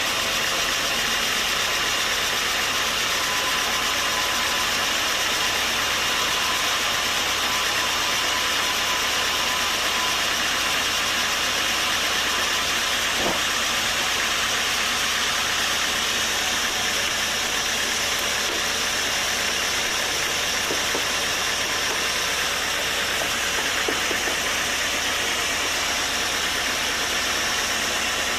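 Sawmill machinery running with a steady, even mechanical noise that holds the same level throughout.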